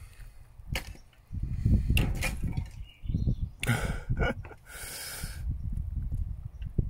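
Kitchen knife scraping and cutting into a raw sea cucumber on a plastic cutting board, in several short scrapes a second or so apart, over an uneven low rumbling noise.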